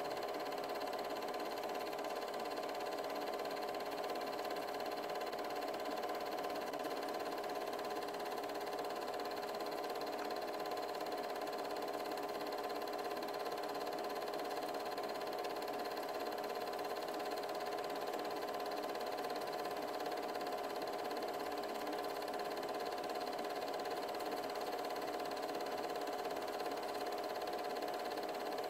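Steady whir of an 8mm film projector running, an even mechanical hum with a few fixed tones that never changes.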